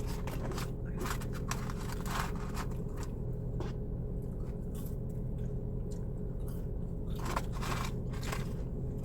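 A person chewing food close to the microphone, with irregular crunches over a steady low hum.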